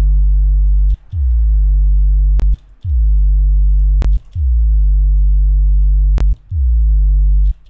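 Synthesized sub-bass from Ableton's Hip Hop Sub Bass preset playing a line of deep held notes in G, a new note every one to two seconds. Each note starts with a short downward pitch slide, and a click marks each short gap between notes.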